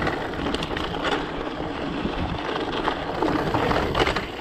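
Mountain bike rolling along a hard-packed dirt trail: steady tyre noise with scattered clicks and knocks as the bike rattles over stones.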